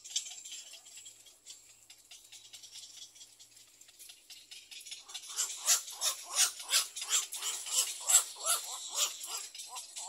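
Egret nestlings giving a rapid, rhythmic begging chatter of short harsh calls, about three a second, starting about halfway in, over a faint high hiss.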